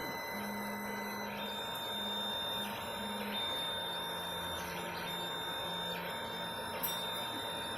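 Filament 3D printer running a print: its stepper motors hum in short tones that jump in pitch from move to move, over a steady fan hiss.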